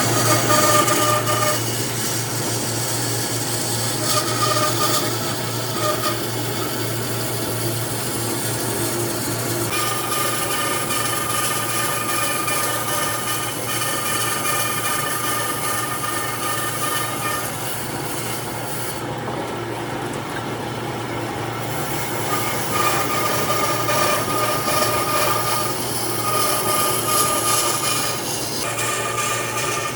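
Electric power tool working on wood: a steady low motor hum under a rasping noise, with a higher whine that comes and goes every few seconds as the tool is worked.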